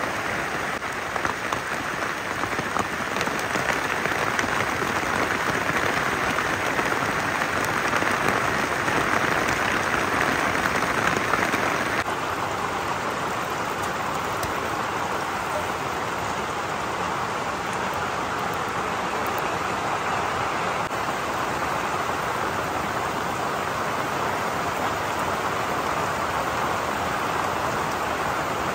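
Steady rain falling, a dense, even hiss that shifts slightly in tone about twelve seconds in.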